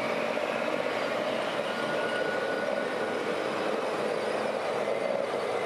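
A steady mechanical running noise with a few faint steady tones and no clear rhythm or break.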